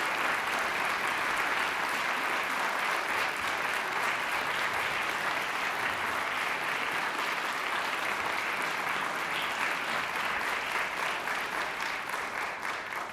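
Theatre audience applauding, a steady dense clapping that dies away near the end.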